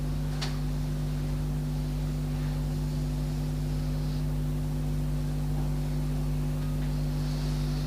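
Steady low hum over a faint hiss, with a light click about half a second in.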